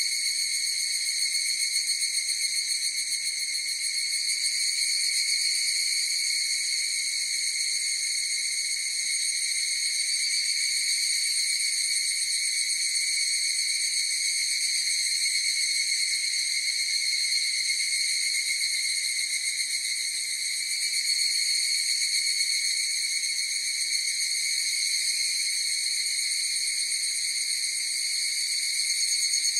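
A chorus of higurashi (evening cicadas, Tanna japonensis) calling in a steady, unbroken high-pitched ringing trill.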